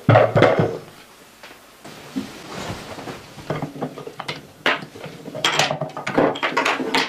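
Wooden blocks and pegs of a wooden mosque-model puzzle knocking and clattering on a wooden table as children pull it apart, with a heavy knock at the start as the model is set down and the clatter growing busier from about halfway.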